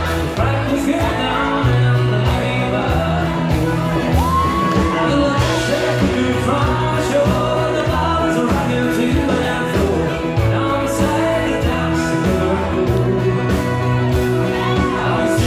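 Live band music: piano accordion played over a steady bass line, with singing.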